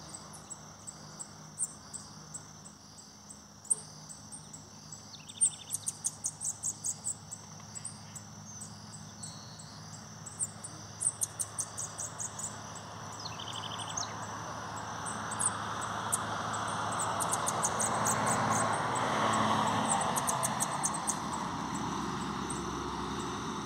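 A small songbird sings in short bursts of rapid, high chirps, several times, over a steady buzz of crickets. In the second half a passing vehicle's noise swells up and fades slightly near the end.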